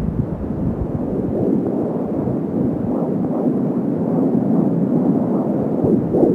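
Fetal Doppler output, mostly a rough rumbling static, with faint fast rhythmic whooshes of a 16-week fetal heartbeat partly coming through around the middle.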